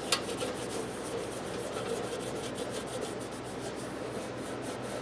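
Cleaner wax being rubbed by hand onto a small metal toolbox: steady scrubbing made of many quick, repeated strokes.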